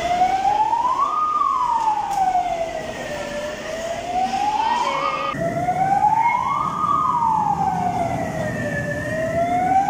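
Fire-engine siren wailing: its pitch climbs, then falls away slowly, over and over in cycles of about three seconds. About five seconds in it breaks off and starts a fresh rise.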